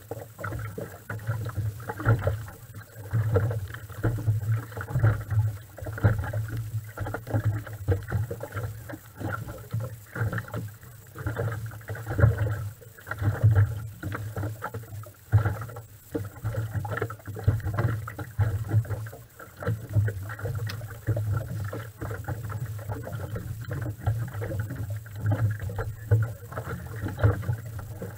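Racing outboard engine idling at low revs: an uneven, lumpy rumble that keeps rising and falling in loudness.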